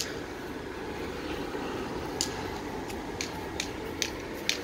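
Electric blower fans of a Gemmy inflatable haunted castle running with a steady whooshing hum, keeping the inflatable up. A run of light ticks, roughly two a second, comes in about two seconds in.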